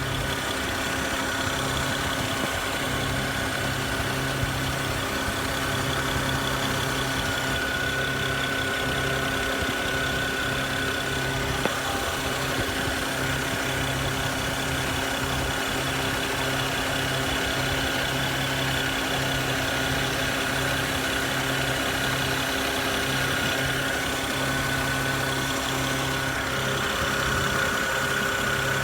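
BMW 335i's N54 twin-turbo straight-six idling steadily, with a continuous hiss from around the intake and throttle body near the alternator.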